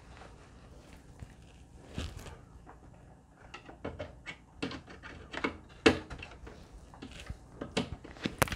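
Irregular small clicks and taps of a screwdriver working inside a desktop PC case, prodding at the RAM slot latches, with a few louder knocks about two seconds in, around six seconds in and near the end.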